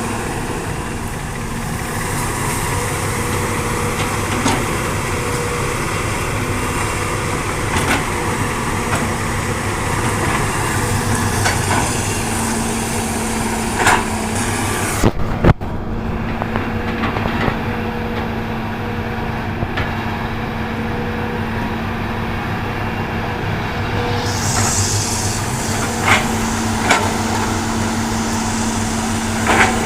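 Hitachi excavator's diesel engine running steadily under work, with occasional sharp knocks and clanks as it digs and loads.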